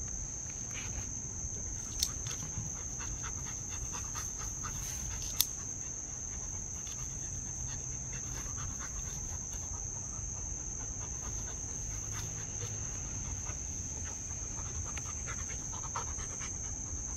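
Rottweiler panting and scuffing in dirt as it paws at the ground and noses a rock, with two sharp clicks, about two seconds in and again a few seconds later. A steady high insect drone, likely crickets, runs underneath.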